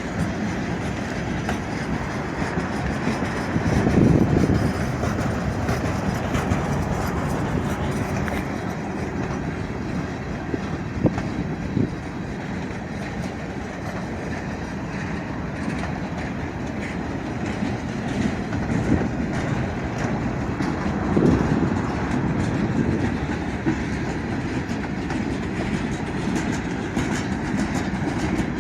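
Union Pacific freight train's cars rolling past: a steady rumble with wheels clacking over the rail joints. It swells louder twice, about four seconds in and again past the middle.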